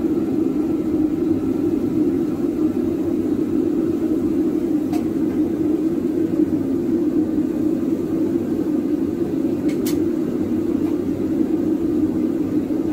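Gas forge burner running with a steady low rumble. Two faint light clicks about five seconds in and near the ten-second mark.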